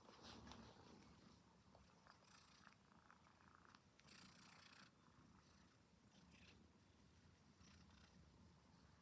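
A domestic cat purring softly and steadily, with two brief bursts of rustling about two and four seconds in.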